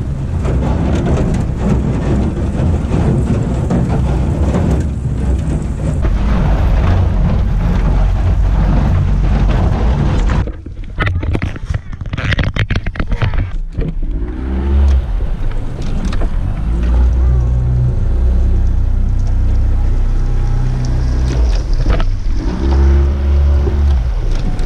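Yamaha outboard motor running as the pontoon boat moves through the water, with heavy wind rumble on the microphone. In the second half a steady engine hum comes through more clearly.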